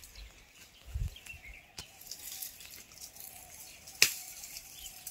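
Quiet rural outdoor ambience with faint bird chirps, a low thump about a second in and a sharp click about four seconds in.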